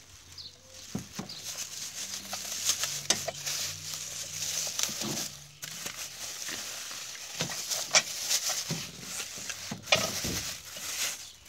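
Clear plastic bag crinkling and rustling as it is handled and pulled off a chainsaw powerhead, with sharp crackles throughout.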